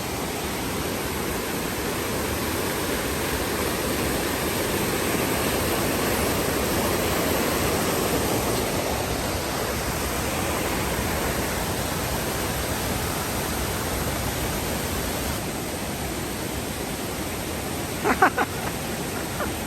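Steady rush of falling water from a waterfall or stream, swelling a little in the middle. Near the end, a quick cluster of a few sharp clicks stands out above it.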